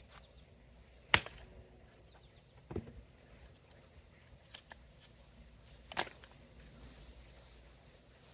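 Axe splitting a firewood log: a sharp crack as the blade strikes about a second in, a duller thud near three seconds, and another sharp strike about six seconds in.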